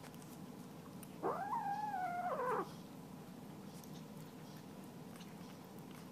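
A kitten gives one long meow about a second in while eating from its food bowl. The meow rises sharply, holds level for about a second, then falls away.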